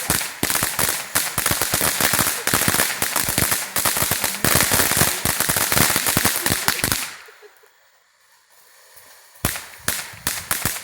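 Shogun Fireworks "Popcorn" crackling fountain firing a dense, rapid run of sharp crackles. The crackling dies away about seven seconds in, then starts again with a last burst of crackles near the end.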